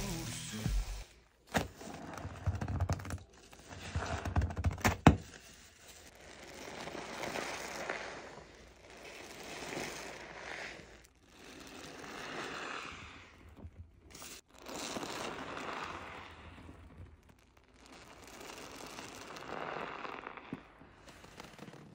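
A soap-saturated sponge squeezed by hand, foam crackling and water squelching out. There are sharp crackles in the first five seconds, then about five slow squeezes, each swelling and fading over two to three seconds.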